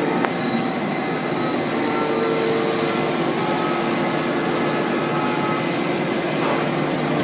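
Citizen L20 CNC Swiss-type lathe running, a steady mechanical noise with several faint whining tones that come and go as the spindles change, and a short click just after the start.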